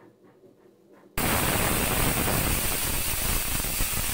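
Pressure cooker whistling: steam suddenly blasts out past the weight valve about a second in, a loud, steady hiss, the sign that the cooker has reached full pressure.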